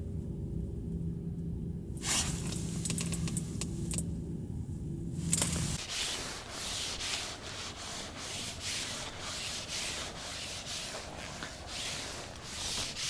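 A low steady hum that stops about six seconds in, with brief scraping bursts, followed by repeated rubbing and scraping strokes about once or twice a second.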